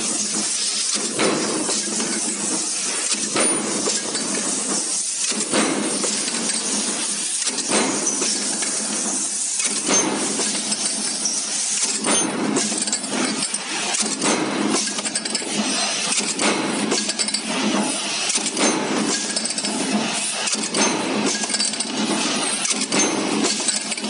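Stamping press running a progressive die: a continual clatter of metallic clanks and clinks as formed sheet-steel parts drop into a plastic bin.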